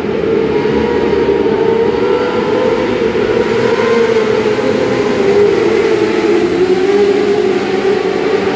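A pack of winged dirt-track sprint cars racing, their engines running together in one steady drone whose pitch wavers up and down.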